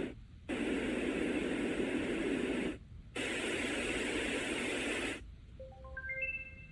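Steady white-noise hiss from a portable white noise machine, cutting out briefly twice and stopping about five seconds in. Near the end a quick rising run of about six short notes begins.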